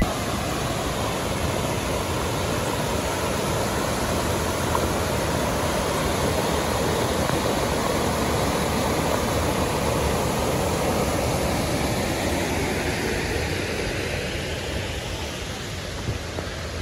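Mountain river rushing over rocks in a steady, even roar, growing fainter in the last few seconds.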